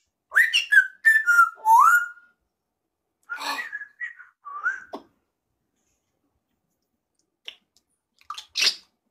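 African grey parrot whistling: a run of short whistled notes sliding up and down in the first two seconds, another group around the middle, then a short noisy burst near the end.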